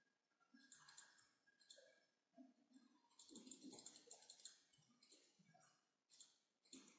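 Faint computer mouse clicks over near silence, with a quick run of them about three to four and a half seconds in, as the mouse scrolls and picks through a font list.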